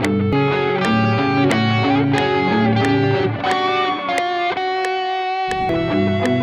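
A guitar beat playing: layered, plucked electric guitar melodies over a repeating pattern of low notes, with a sharp attack on each note. The low part drops out for about a second past the middle, then comes back.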